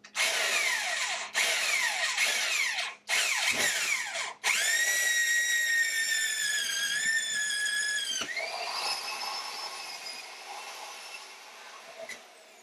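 Power drill driving a 1-inch hole saw through a refrigerator door's thin sheet-metal skin and foam core. It starts with several short bursts of cutting broken by brief pauses, then a steady whining run of about four seconds that cuts off suddenly, then a quieter run that fades away.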